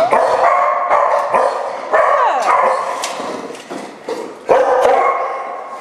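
Pit bull–type dog barking in an echoing shelter kennel, with sharp loud barks about two and four and a half seconds in.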